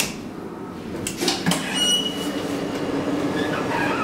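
Hydraulic elevator arriving at a floor: a few knocks, a short high beep, then a steady hum as the automatic sliding car door opens.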